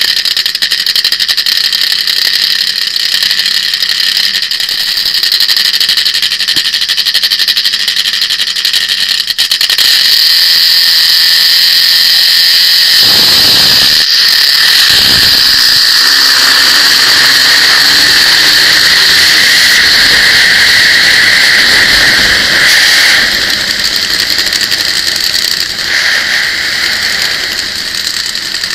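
Top Fuel nitro drag motorcycle engine running hard under throttle, loud and high-pitched. The note breaks briefly about halfway through, then eases off near the end.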